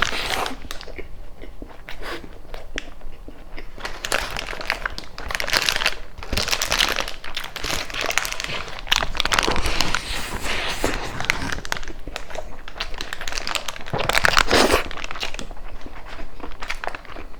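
Food wrapper crinkling and rustling in irregular bursts as it is handled close to the microphone, with some crunchy biting mixed in.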